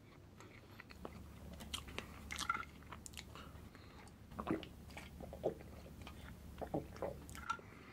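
Close-miked mouth sounds of a man chewing and sipping a drink through a straw: scattered faint wet clicks and smacks.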